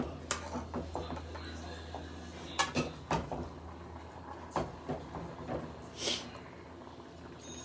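A spatula knocking and scraping against a frying pan as beef strips, bell peppers and onions are stirred: scattered clicks and taps, with a short rustle of food about six seconds in. A low steady hum underneath stops about halfway through.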